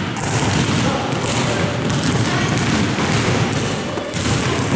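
Several basketballs bouncing and thudding on a hardwood gym floor.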